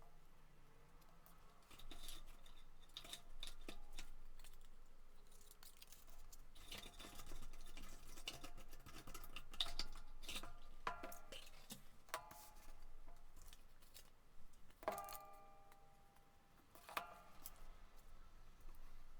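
Paper crafting at a desk: paper being handled and folded, with scattered clicks and crinkles. Four sharper taps of a hard tool or object on the desk ring briefly, the loudest about three-quarters of the way through.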